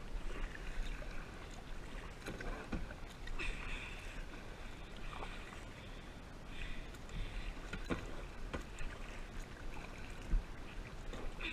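Kayak paddle strokes splashing in the water, a splash every one to two seconds, with a few sharp knocks.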